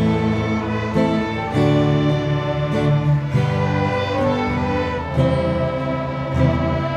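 Instrumental music with sustained notes that change every second or so.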